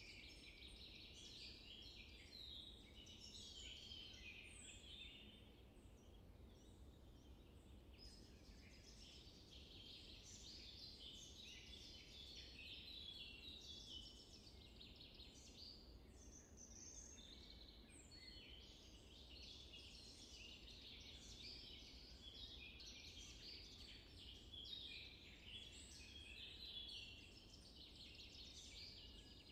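Faint forest ambience: many small birds chirping, with a brief lull about six seconds in, over a low steady rumble.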